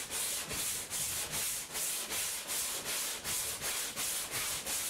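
Hand sanding a boat hull with 40-grit paper on a longboard: steady back-and-forth strokes, about three a second.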